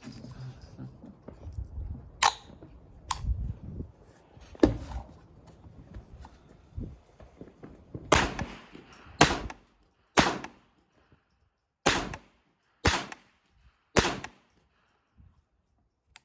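Smith & Wesson M&P15-22 pistol firing .22 LR rounds semi-automatically. Six sharp single shots come about a second apart in the second half, after a few lighter knocks and rumble at the start.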